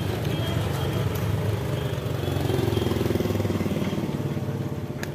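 A motorcycle engine running, growing a little louder around the middle and then fading.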